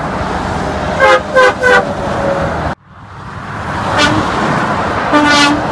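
Semi-truck air horn blasting three short times about a second in, over the steady rush of highway traffic. The sound cuts off abruptly partway through, then the traffic noise builds back and another long horn blast sounds near the end.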